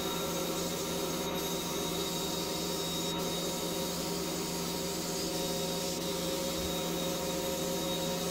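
Sandblast cabinet in use: steady hiss of the abrasive blast gun stripping paint from a small metal part, over a steady hum.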